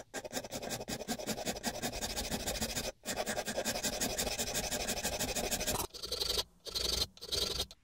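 Steel file rasping across a boxwood plane body in quick strokes: two long runs broken by a brief pause about three seconds in, then three short strokes near the end.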